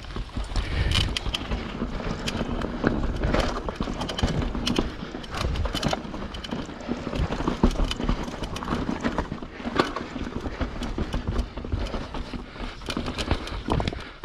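YT Capra 29 mountain bike riding down a rough trail: tyres rumbling over dirt and rock, with frequent irregular clicks and knocks as the bike chatters over the terrain.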